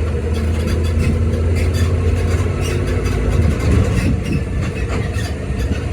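Zoomobile tour tram driving along, heard from aboard: a steady low engine hum, its note shifting about three and a half seconds in.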